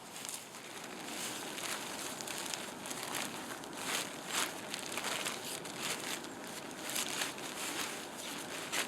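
Polyurethane-coated tent fly fabric rustling and crinkling irregularly as it is handled and pulled into place.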